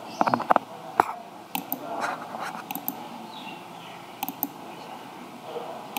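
Computer mouse clicking: a quick run of clicks near the start, then scattered single and double clicks.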